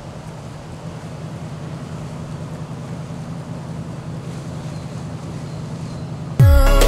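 Low, steady engine drone of a cabin cruiser motoring past, over a steady hiss, slowly growing louder. Loud electronic dance music cuts in abruptly near the end.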